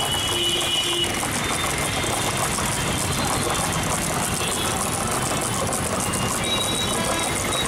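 Steady street traffic and engine noise, with the swishing of a wooden churning stick whisking yogurt in a steel pot.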